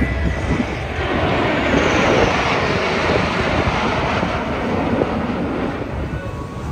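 Jet engine noise from a low formation of Blue Angels F/A-18 Super Hornets flying past. It is a loud, broad rushing noise that swells about a second in, carries a faint falling whistle, and eases a little near the end.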